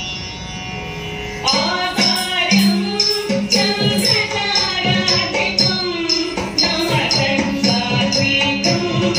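Carnatic dance music for Bharatanatyam. It opens on a held drone, then about a second and a half in a voice starts singing over steady percussion strokes, about two to three a second.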